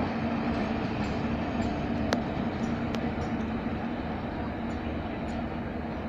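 Passenger train coaches rolling along the track with a steady rumble and hum, with two sharp clicks about two and three seconds in.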